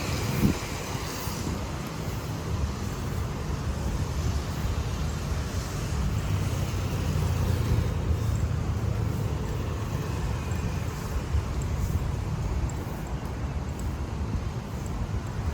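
Road traffic passing on a busy city street: a steady low rumble of engines and tyres.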